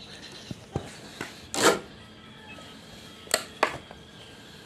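A young long-tailed shrike (cendet) in a cage giving a few short sharp calls: the loudest about one and a half seconds in, then two close together a little after three seconds.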